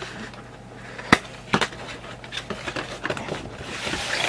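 Cardboard box and plastic packaging being handled: a sharp click about a second in, then further small knocks and crackling, with a rustling hiss building near the end.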